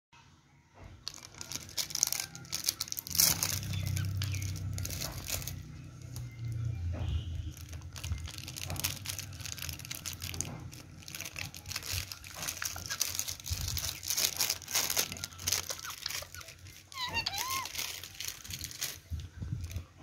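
Foil packet of jelly sweets being crinkled, torn open and shaken out over a small plastic bowl, making dense irregular crackling.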